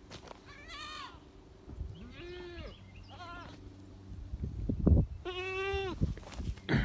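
Goats bleating: four or five separate calls of differing pitch, the longest a little past the middle. Low thumps come shortly before that long call.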